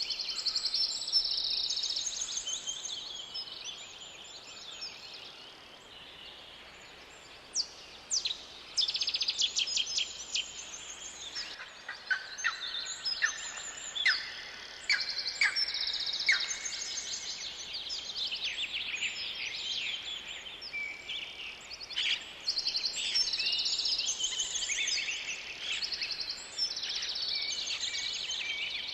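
Several songbirds chirping and singing in overlapping high-pitched trills and short notes, a forest bird chorus. It quietens briefly a few seconds in, then picks up again with sharp, clear chirps.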